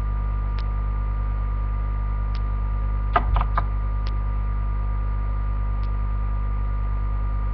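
Steady electrical mains hum in the webcam recording, with faint ticks every second and a half or so and a brief burst of handling noise about three seconds in.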